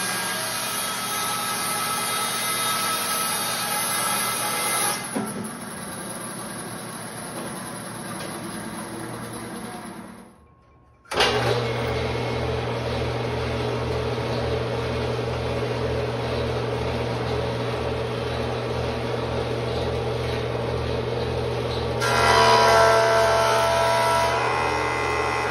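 Bandsaw running while cutting a rough quartersawn white oak plank. About five seconds in the cutting noise eases and the saw runs on lighter. After a short break a jointer runs with a steady hum and low pulsing, and near the end an oak board is fed across its cutterhead, adding a louder, brighter planing noise.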